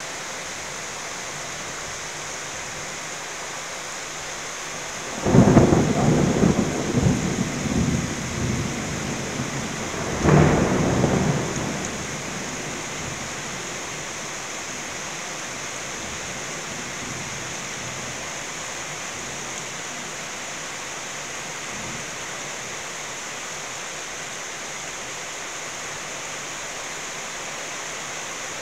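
Steady rain-like hiss with two loud rolls of thunder: the first starts suddenly about five seconds in and rumbles for about four seconds, and a shorter second roll follows about ten seconds in.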